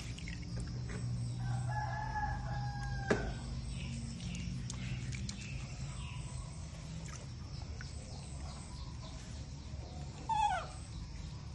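Animal calls: a long, level call starting about one and a half seconds in, and a short squeal falling in pitch near the end, over a steady low hum.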